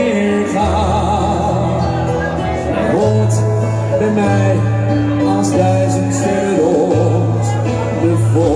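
Man singing a Dutch pop ballad with a wavering vibrato over backing music with sustained bass notes.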